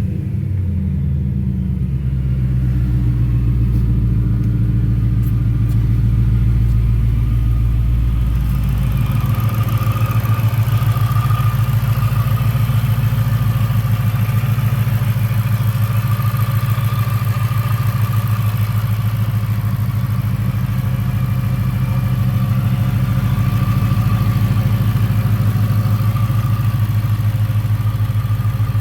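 2021 Ford Mustang GT's 5.0-litre V8 with a freshly installed 3.0-litre Whipple supercharger, idling steadily after its revs drop back at the start. A faint steady high tone joins from about nine seconds in.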